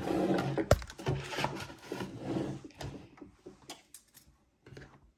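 Yarn and a loom hook being worked over the plastic pegs of an afghan knitting loom: rustling and rubbing with scattered taps, a sharp click under a second in, then only a few faint taps near the end.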